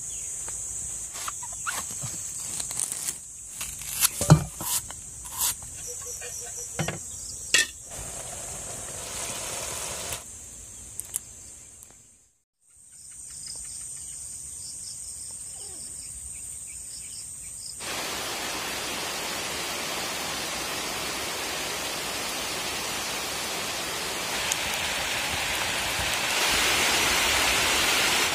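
Insects trilling at a steady high pitch, with scattered sharp knocks over the first dozen seconds. After a brief cut, steady rain takes over from about 18 s and grows heavier near the end.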